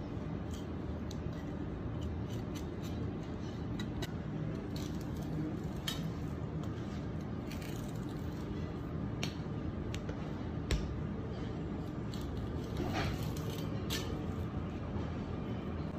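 Kitchen knife slicing and scraping through bonito flesh and along the bones on a plastic cutting board, with scattered light clicks and taps, over a steady low background noise. A single dull knock about two-thirds of the way through is the loudest sound.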